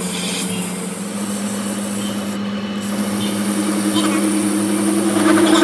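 A machine motor running steadily with a low hum; a second, higher hum comes in about halfway through and grows louder toward the end.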